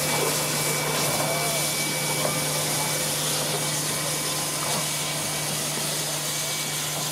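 Steam hissing steadily from the cylinder drain cocks of a K class and an R class steam locomotive as they roll slowly, over a constant low hum.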